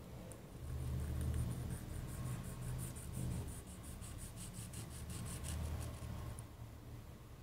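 Light, rapid scratching, about five strokes a second, from hands working the wires at a table fan's stator coil, over a low rumble of handling noise on the microphone.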